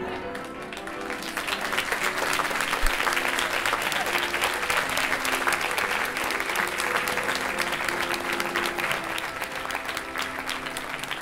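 Audience applauding, building up about a second in, over the last held notes of the live accompaniment music.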